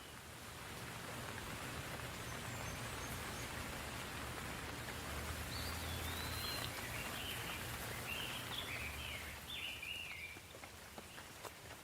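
Soft rain falling as an even hiss that builds over the first seconds and eases near the end. A bird calls in a quick run of short chirps in the middle, and a few separate drips tick near the end.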